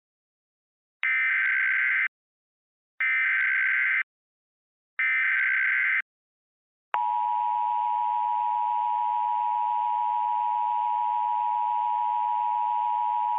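Emergency Alert System signal: three one-second bursts of warbling SAME digital header tones, a second apart, then about seven seconds in the steady two-tone EAS attention signal begins and holds. It announces an emergency alert, here a tornado warning.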